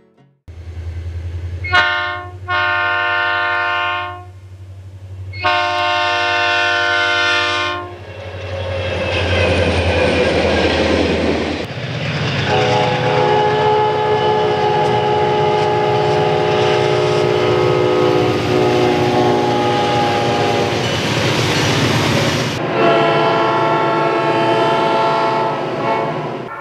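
Multi-chime air horns on EMD SD40T-2 tunnel-motor diesel locomotives, in three recordings. The first gives a short toot and two long blasts over the locomotives' low, steady engine drone, followed by the rumble of the passing train. The second is a long blast of a different-sounding horn with one brief break, and the third is another long blast near the end.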